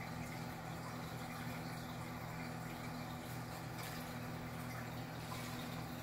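Reef aquarium running: a steady low hum from its pumps under a faint trickling and bubbling of moving water.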